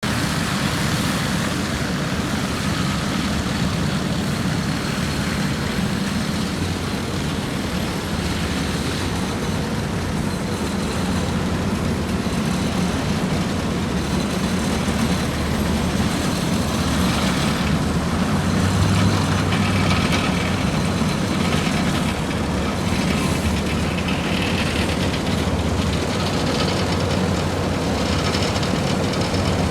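Heavy diesel engines of asphalt paving machinery running steadily, a loud low drone that swells slightly about two-thirds of the way through.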